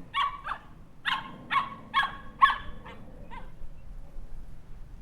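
Puppy barking: a quick run of about eight short, high-pitched barks that stops about three and a half seconds in.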